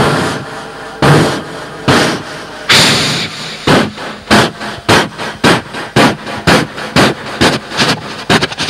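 Man vocally imitating a train pulling away, blowing sharp chugging bursts into a microphone: slow and spaced out at first, then quickening steadily to about three a second.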